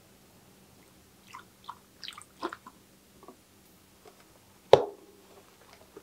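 Bicycle tyre being worked by hand on its rim: a series of short rubbery scuffs and squeaks, then one sharp knock a little under five seconds in.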